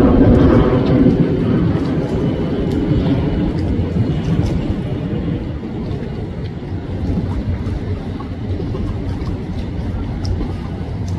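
Engine rumble of a passing tour boat, steady and low, slowly fading as the boat moves on.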